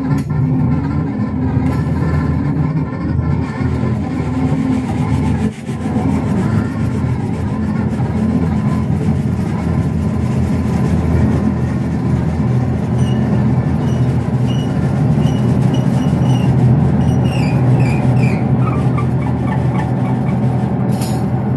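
Live electronic noise music: a loud, dense, rumbling drone from synthesizers and effects. From about halfway through, short chirping electronic blips and falling glides run over it.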